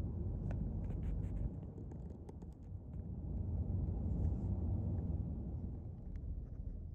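Steady low rumble of a vehicle on the road, with a few light clicks and ticks in the first few seconds.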